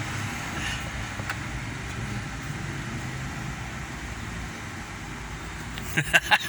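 Steady low rumble like a vehicle or motor running, with a few sharp clicks near the end.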